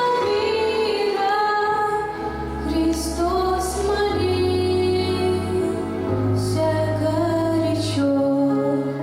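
A woman singing a song in long held notes over instrumental accompaniment with sustained bass notes that change every second or two.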